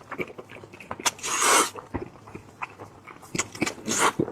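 Close-up crunching and chewing of braised lamb ear cartilage: irregular crisp crunches and clicks, with two louder crunchy bites, about a second in and near the end.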